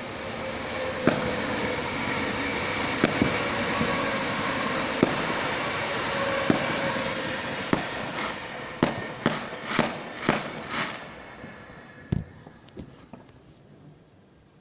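Fireworks going off: a steady crackling hiss with sharp bangs over it, then a quick run of about six bangs and a last thump, after which the noise dies away.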